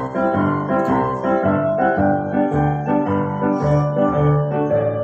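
Keyboard music in a piano sound playing an instrumental interlude of a march-style song, chords over a moving bass line with no singing.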